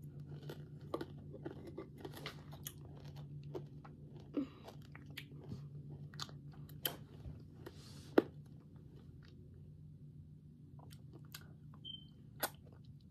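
A child eating a Juicy Drop Pop hard-candy lollipop up close: wet chewing and sucking mouth sounds with scattered sharp clicks and crunches, over a steady low hum.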